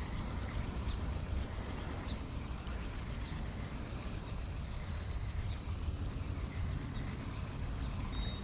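Steady low rumble of outdoor background noise, with a few brief faint high chirps partway through and near the end.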